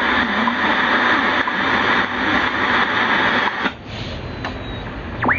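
KENTEC BCL-1 shortwave receiver's loudspeaker giving a thick, static-laden signal that cuts off with a click about three and a half seconds in, leaving plain hiss. Near the end a heterodyne whistle sweeps up and back down as the dial is tuned across a carrier.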